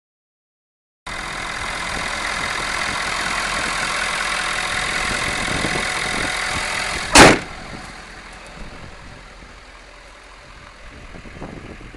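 A pickup truck's diesel engine running steadily. About seven seconds in comes a single loud thud, after which the sound is much quieter.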